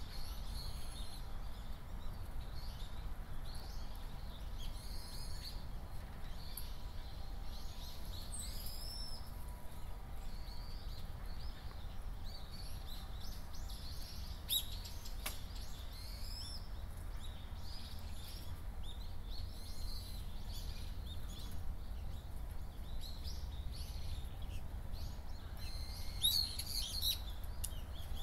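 Small birds chirping with short, repeated calls, a few louder ones near the end, over a steady low rumble.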